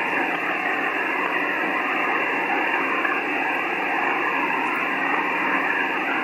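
Icom HF transceiver's receiver audio on 20 metres in upper sideband: steady hiss with garbled, overlapping voice signals, narrow and telephone-like in tone.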